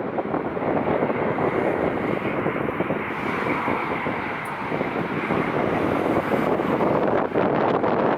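Jet airliner engines running steadily as the plane passes, with a faint whine above the broad rush, mixed with strong wind buffeting the microphone.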